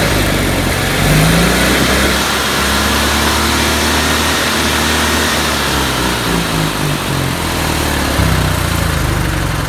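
Onan generator engine running loudly, its pitch shifting about a second in and again near the end. The generator has a fault: it runs only while the start button is held and will not stay running once the button is released.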